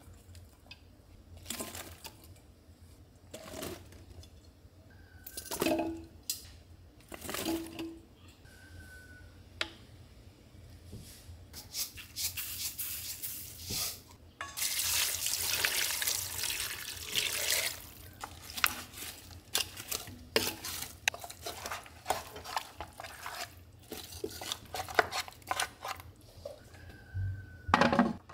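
Ingredients tipped into a stainless pressure cooker, with scattered clinks and knocks of a steel bowl and wooden spoon against the pot. Midway, liquid is poured in for a few seconds. Near the end the pressure-cooker lid goes on with a clunk.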